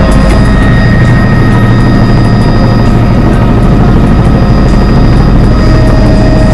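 Helicopter engine and rotor noise in flight, heard from inside the cabin: a loud, steady low rumble with a constant high whine above it.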